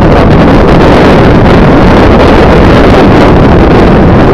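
Loud, steady wind rumble on the microphone of a camera on a moving vehicle, heavy in the low end, with no distinct engine note or impact.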